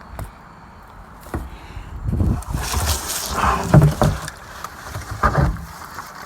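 Scrap metal being handled: a run of thuds and knocks with some scraping, loudest about four seconds in.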